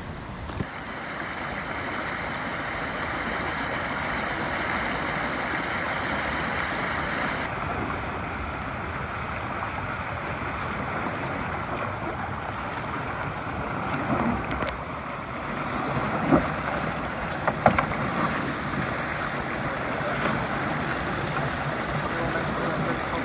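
Steady rushing of water through a shallow rocky rapid, with a few short knocks past the middle.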